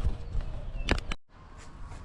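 A few sharp knocks and clicks over a low rumble, then a short stretch of dead silence at an edit cut just after a second in, followed by faint background noise.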